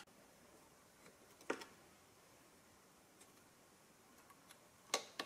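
Quiet workshop room with two sharp metallic clicks, about a second and a half in and again near the end, plus a few faint ticks: hand tools and parts being handled against a small motorcycle engine.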